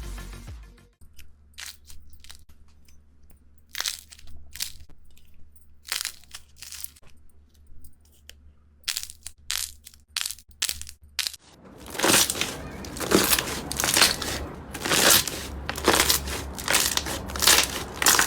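Crunchy slime being pressed and squeezed by hand: scattered crackles and pops, then a dense, louder run of crackling near the end.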